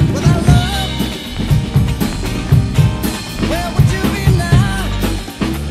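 Acoustic rock drum kit played in a steady beat, with bass drum and snare strokes and rimshots on the snare, laid over a recorded band track with singing.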